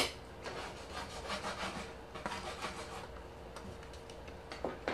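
Hard plastic parts of a Dyson cordless vacuum's cleaner head scraping and rubbing against each other as the head is handled and its cover worked loose, in a series of short scrapes, with a sharp click at the start and another near the end.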